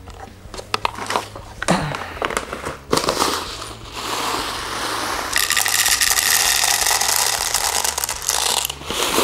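Plastic 0.20 g airsoft BBs poured from a foil bag into a high-capacity AK magazine. The bag crinkles and clicks while being handled, then from about five seconds in a steady rattling hiss of pouring BBs runs until near the end.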